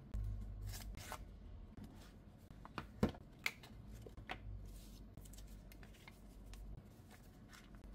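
Paper-based smartphone packaging being handled as the box is opened: the lid sliding off, and paperboard inserts rustling, scraping and tapping, with a sharper tap about three seconds in. A faint low steady hum runs underneath.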